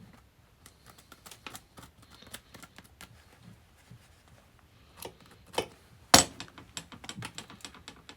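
Scattered light clicks and taps of small vise parts being handled and cleaned, with one sharper knock about six seconds in.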